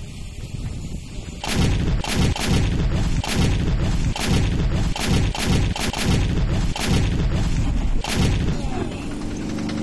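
Towed autocannon firing a long string of heavy shots, between two and three a second, each with a deep boom. The firing starts about a second and a half in and stops shortly before the end.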